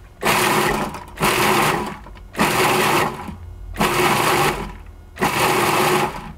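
Food processor pulsed five times, each motor burst about a second long with short pauses between, chopping cooked ground meat into small pieces.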